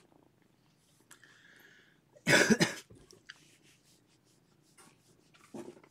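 A single loud cough, a short double burst about two seconds in, with a smaller one near the end, over a cat's faint steady purring.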